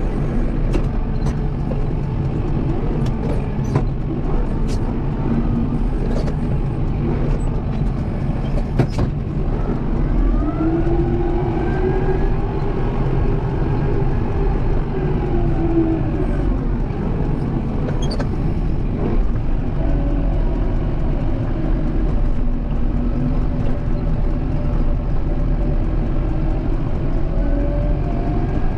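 Kubota M7060 tractor's four-cylinder diesel engine running steadily while plowing, its pitch rising and falling a few times. A few sharp clicks or knocks come in the first third.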